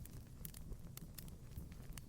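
Fireplace fire crackling: scattered sharp pops and snaps over a low, steady rumble of flames.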